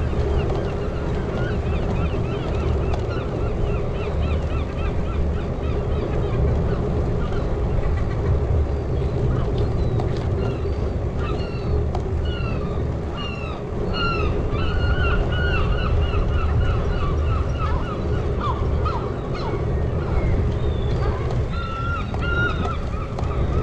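Birds calling with many short, repeated honking calls over a steady low rumble of wind and tyres; the calls come thickest in the second half.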